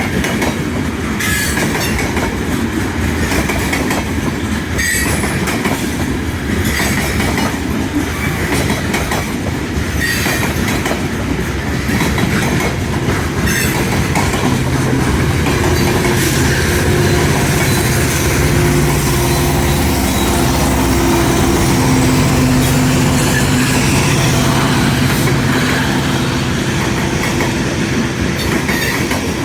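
Freight train rolling past at close range, its wheels clicking over rail joints with some wheel squeal. About halfway through, a steady low drone joins in and holds.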